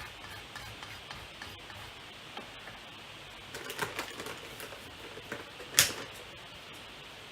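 Light clicks and taps from small objects being handled on a work table, a cluster of them about halfway through and one sharper click about six seconds in.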